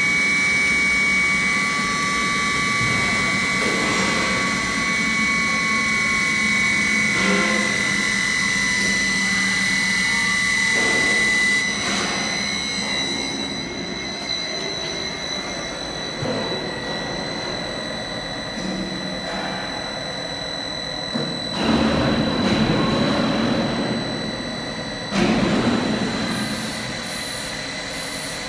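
High-speed mixer running, a loud steady machine whine with several high tones. About twelve seconds in the lower tones fade and it gets somewhat quieter, leaving a thinner high whine. Two louder bursts of noise come in the last third.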